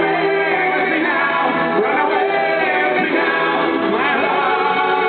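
Live rock concert music: a male lead vocal singing over the full band.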